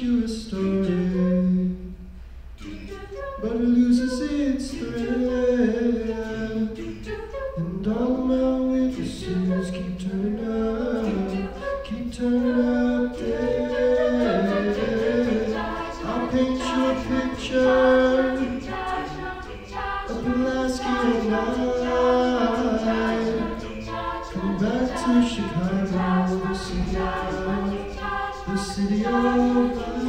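A mixed-voice a cappella group of men and women singing unaccompanied, several voices holding and moving through chords together, with a brief softer passage about two seconds in.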